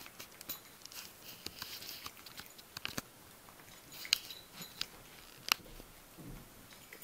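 Maltese puppy eating dry kibble from a bowl: irregular crunching and sharp clicks of kibble and teeth against the bowl, the sharpest about four and five and a half seconds in.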